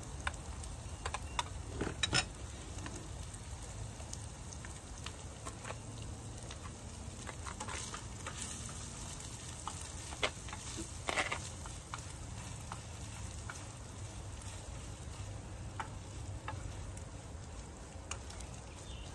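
Grits cooking in a frying pan on a butane camp stove, with a soft sizzle, while a spoon stirs them and now and then clicks against the pan.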